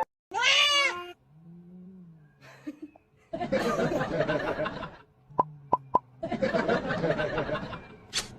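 A short, high cat meow, then a person laughing in two bursts.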